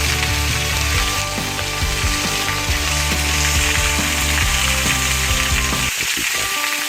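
Background music with sustained notes over a steady hiss; the low bass notes drop out about six seconds in.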